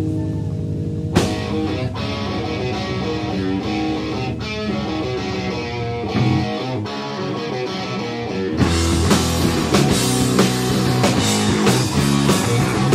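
Rock music played on guitar: a ringing chord, then a guitar part starting with a sharp strike about a second in. About two-thirds of the way through it gets louder and fuller as the drum kit and the rest of the band come in.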